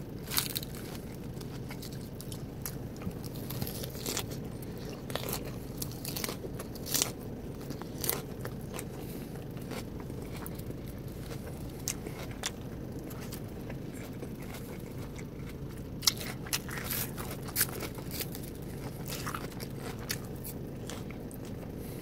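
Close-up eating sounds of a person chewing a lettuce, boiled egg and chicken salad: irregular crisp crunches and chewing clicks over a steady low hum.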